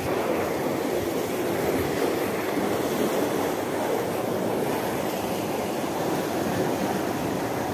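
Steady rushing of water flowing and churning along a concrete canal wall below a sluice, an even noise at a constant level.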